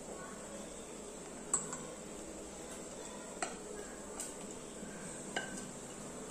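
Metal spoon scraping thick batter out of a bowl, with four light clinks of the spoon against the bowl's rim spread over a few seconds.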